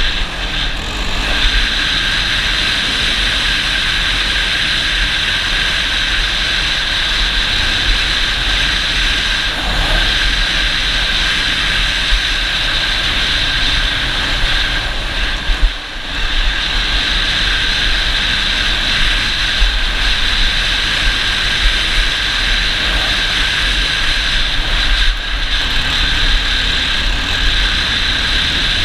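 ATV engine running steadily while under way, mixed with a continuous rushing noise from wind on the microphone. The sound dips briefly about halfway through.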